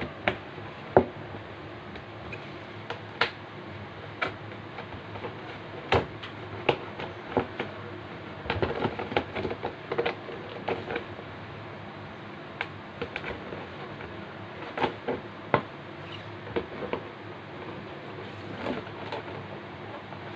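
Clear plastic bag being handled and unfolded: irregular crinkles and sharp crackles, with a denser flurry of rustling about nine seconds in.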